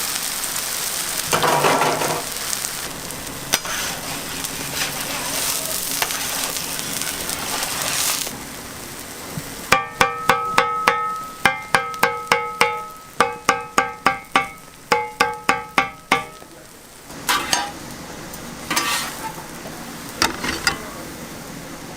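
Welsh onion pancake (pajeon) frying in oil with a steady sizzle. About ten seconds in, the sizzle drops back under a run of about twenty sharp, ringing metallic taps lasting some six seconds, followed by a few scattered clatters.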